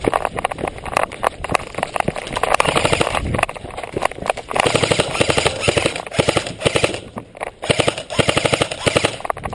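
Airsoft electric guns firing on full auto: rapid rattling bursts of shots with short pauses between them.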